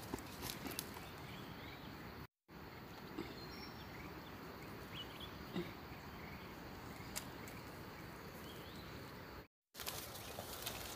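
Steady outdoor forest background hiss with faint short chirps scattered through it. There are a few soft clicks and rustles of mushrooms being handled into a woven bamboo basket, mostly near the start. The sound drops out completely twice, briefly.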